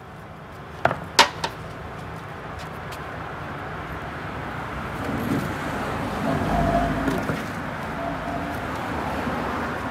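Street traffic: a motor vehicle passes, its noise swelling to a low rumble about two-thirds of the way through and then easing. Two sharp clacks sound about a second in.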